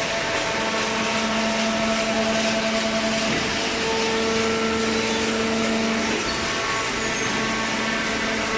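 Vertical cardboard baler's hydraulic power unit running: a steady machine hum and whine with several held tones. One tone comes in about half a second in and drops out about six seconds in.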